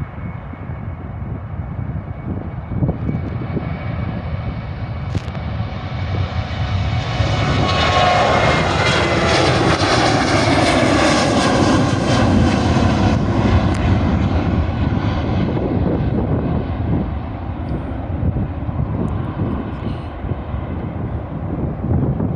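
Boeing 737-800 turbofan jet engines at takeoff power passing by: the roar swells over several seconds, is loudest about ten seconds in with a falling whine as the jet goes past, then fades away.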